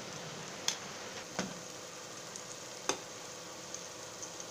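Onion-tomato masala frying in oil in a pan, giving a soft steady sizzle, with three short sharp clicks.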